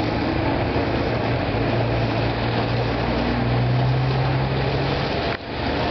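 Diesel engine of a Hitachi excavator running steadily under a constant hiss of demolition noise. Its low hum grows stronger for a few seconds. The sound drops out briefly about five seconds in.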